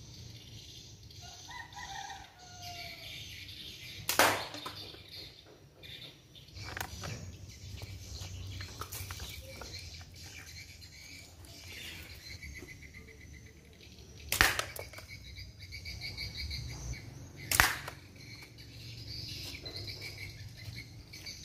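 Three sharp cracks of slingshot shots striking a wooden box target and the cup set on it: one about four seconds in, then two more about three seconds apart later on.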